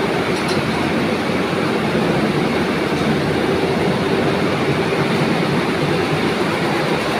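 Steady, loud din of running cotton comber machines and other spinning-mill machinery, with a constant hum under the noise.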